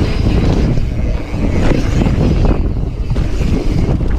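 Wind buffeting the microphone and mountain bike tyres rumbling over a dirt trail at speed, with irregular rattles and knocks as the bike bounces over bumps and ruts.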